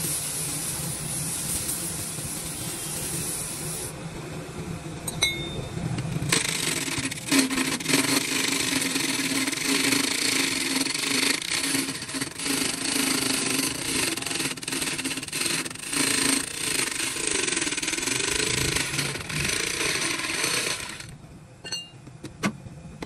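Power tool working wood. It hisses for the first few seconds, then from about six seconds in runs for a longer stretch with its motor pitch wavering up and down under load, and stops about two seconds before the end.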